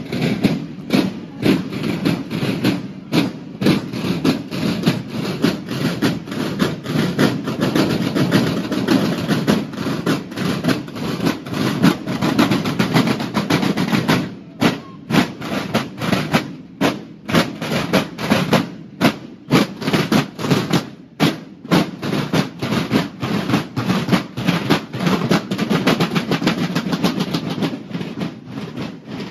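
Snare drums of a Mexican banda de guerra (drum and bugle corps) playing a marching cadence: quick, steady strikes and rolls that keep going without a break.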